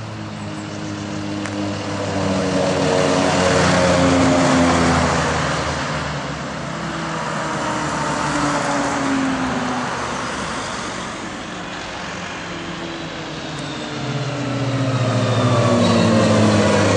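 Military vehicles driving past one after another on a paved road, engines and tyres swelling and fading with each pass: Wolf (Mercedes G-Class) jeeps first, then a Fuchs six-wheeled armoured personnel carrier, whose deep diesel engine is loudest near the end.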